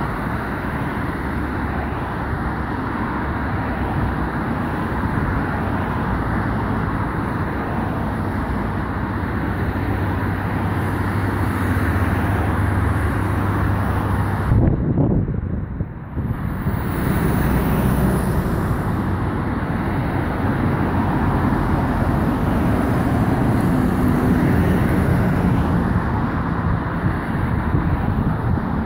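Steady outdoor noise of wind on the microphone and road traffic, mixed with the distant sound of an approaching Airbus A330 airliner on landing approach, its Rolls-Royce Trent engines slowly getting louder. The sound briefly drops out about halfway.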